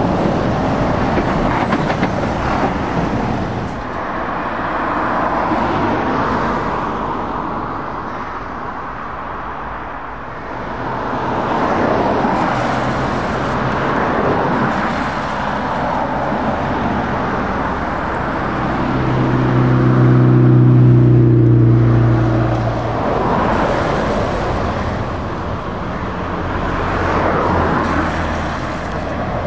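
Heavy trucks and cars driving past one after another, diesel engines and tyre noise swelling and fading as each goes by. About two-thirds of the way through, one passing truck gives a deep, steady droning note for a few seconds.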